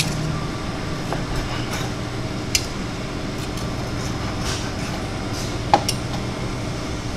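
Steady low mechanical hum of commercial kitchen equipment, with a few light clicks and taps as a knife and fork cut a cooked T-bone steak on a plastic cutting board.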